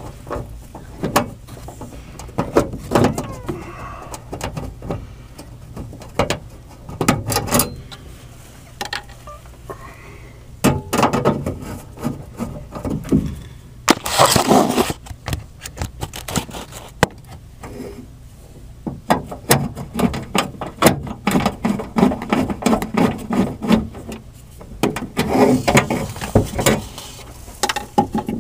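Hand work on an air handler's sheet-metal service door as its two retaining screws are taken out: irregular clicks, taps and knocks of tool and metal, with stretches of scraping, the longest about halfway through.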